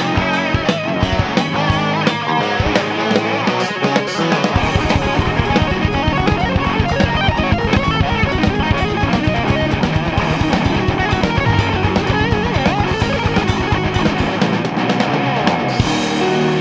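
Instrumental rock passage from a band: electric guitar over a drum kit. About four seconds in, the low end turns into a fast, even run of drum strokes that drops away near the end.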